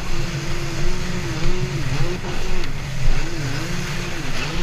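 A Yamaha EX Sport jet ski's three-cylinder four-stroke engine runs under way. Its pitch dips and climbs back several times as the throttle is eased and reapplied, over a dense rumble of wind and water.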